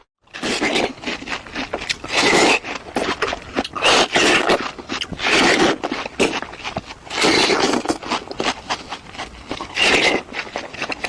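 A person biting and chewing fruit, with wet crunching that swells in bursts every second or two, full of small clicks.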